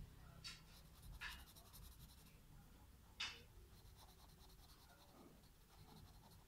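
Felt-tip marker scratching faintly on paper in short colouring strokes, three of them louder, about half a second, just over a second and three seconds in, the last the loudest.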